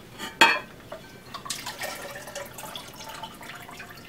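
Ceramic lid of a cat drinking fountain knocking once against its bowl, then water dripping and trickling off the lifted lid back into the bowl for a couple of seconds.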